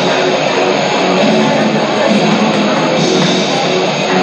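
Rock music with electric guitar, loud and continuous.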